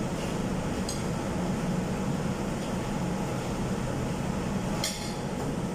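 Steady restaurant room noise, a low hum like air conditioning, with a few light clinks of tableware, the sharpest near the end.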